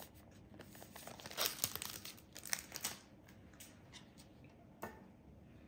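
Foil wrapper of a Pokémon card booster pack crinkling and tearing as it is opened by hand, a quick run of crackles in the middle and one more near the end.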